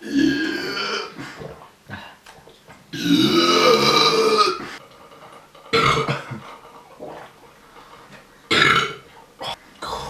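Men burping after drinking beer: about four burps, the longest lasting nearly two seconds around three seconds in, with shorter ones at the start, around six seconds and near the end.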